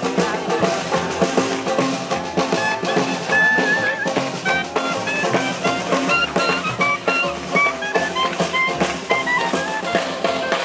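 Small acoustic hot-jazz band playing a swing tune live: clarinet carrying the melody, with a short trill about three seconds in, over plucked upright bass, strummed banjo and snare drum.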